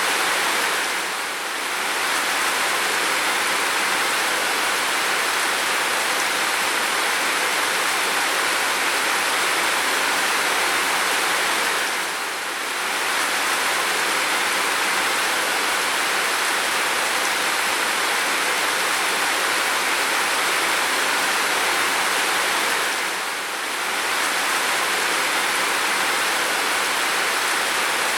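Heavy, steady downpour of rain, a dense even hiss with no separate drops standing out. It dips briefly three times, about every eleven seconds.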